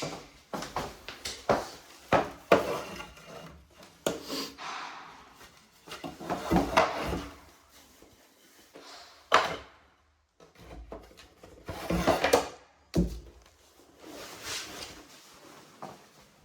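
Wooden knocks and clatter mixed with longer scraping and rubbing, as wood pieces are handled, slid and set down.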